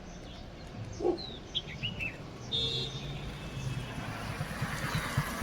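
Outdoor ambience: small birds chirping in short high calls, with one longer high call about two and a half seconds in, over a steady low hum of traffic.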